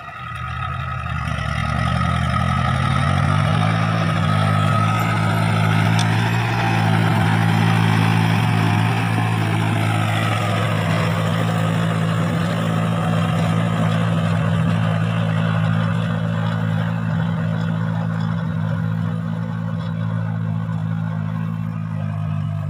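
Kubota tractor's diesel engine running steadily under load while driving a rear rotavator through the paddy soil, with the churning noise of the tiller blades over it. The engine note rises slightly in the first few seconds, then holds even: the rotavator is moving without strain through loose, only moderately damp soil.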